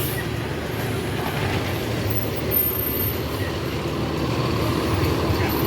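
Large coach bus's diesel engine running as the bus pulls in, a steady low rumble.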